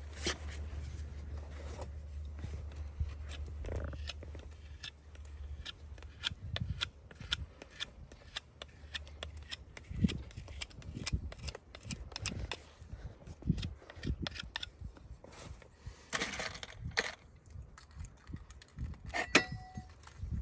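Irregular sharp clicks and scrapes, as of hand tools working a hard material, with a low steady hum that stops about six seconds in and a longer scrape near the end.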